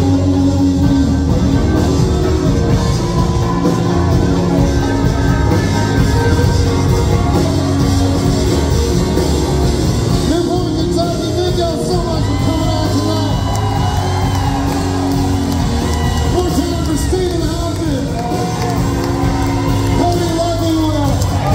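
Live country-rock band playing loudly in a hall: electric guitar lead lines bending in pitch over bass guitar and drums, with voices singing along.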